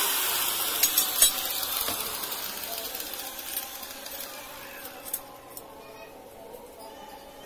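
A hiss fading steadily away over the first few seconds, with a few sharp metallic clinks about a second in and another near five seconds, from a square steel tube being handled and bent.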